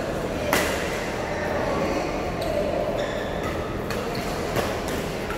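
Badminton rackets striking a shuttlecock in a rally, a series of sharp cracks, the loudest about half a second in, over the steady hubbub of a busy badminton hall.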